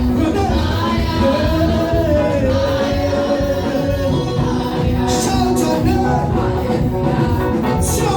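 Live gospel praise music: singing over a band with a steady, full low end, played loud.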